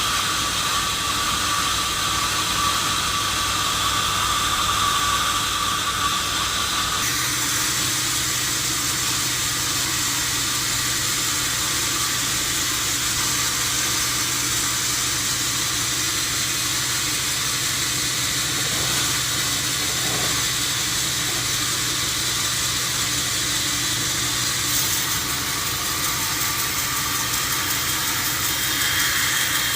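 Sawmill saw running steadily with a loud, hissing machine noise, its sound shifting abruptly about seven seconds in and again near the end.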